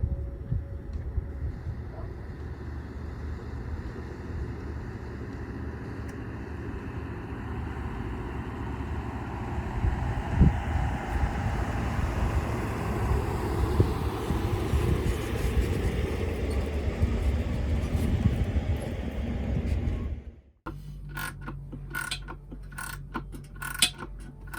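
Road and engine noise from a vehicle being driven, a steady low rumble. About 20 seconds in it cuts off suddenly and background music with a regular beat takes over.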